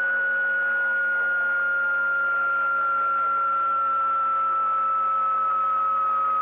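CB radio receiver passing an open carrier with no voice on it: a steady whistle drifting slowly lower in pitch over a low hum and hiss.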